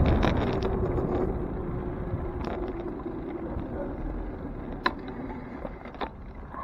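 Wind and road noise on a bicycle-mounted camera riding along a city street, with traffic around. The noise dies down gradually, and two sharp clicks come near the end.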